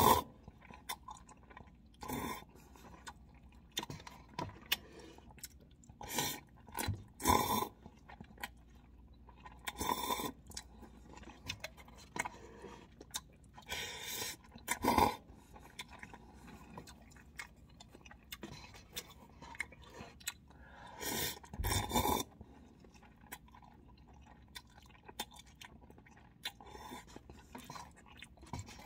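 Close-up eating of instant cup noodles with chopsticks: chewing and mouth sounds, broken every few seconds by a short loud slurp of noodles.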